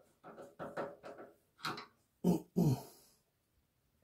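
A man's voice, not words: quiet mumbling, then two short, louder vocal sounds falling in pitch a little over two seconds in.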